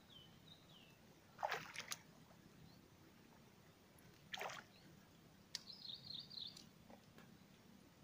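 Quiet outdoor swamp ambience with birds calling, including a short high warbling call a little past halfway. Two brief splash-like noises come about one and a half and four and a half seconds in.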